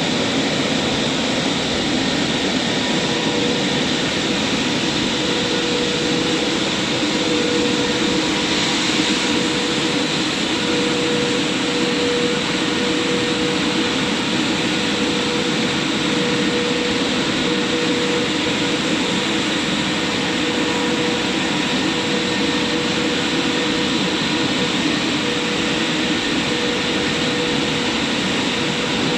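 Christ Varius automatic gantry car wash running steadily: an even, unbroken rush of noise with a faint hum that wavers in strength.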